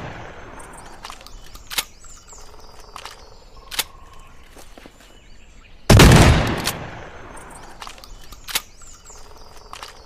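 Sawed-off Manufrance Robust side-by-side shotgun firing a single shot about six seconds in, with a long fading echo after the blast. The tail of a previous shot is dying away at the start, and three short sharp clicks come between the shots.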